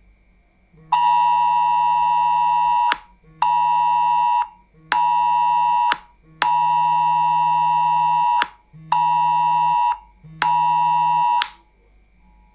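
Mobile phone sounding the UK Government Emergency Alert test tone, a loud siren-like alarm. It comes in six blasts, long-short-short then long-short-short again. A low buzz from the phone's vibration runs under each blast.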